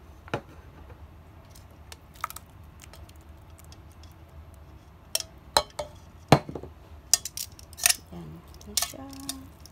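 Metal kitchen tongs clicking and scraping against a metal pot while spaghetti is tossed: scattered sharp clicks, more frequent in the second half, over a steady low hum.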